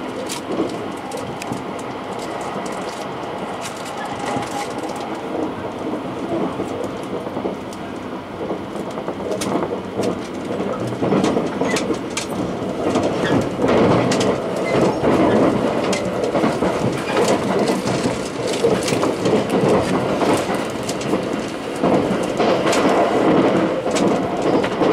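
Limited Express Thunderbird electric train running, heard from inside the passenger car: a steady rumble of wheels on rail with frequent clicks over the rail joints, growing louder about halfway through.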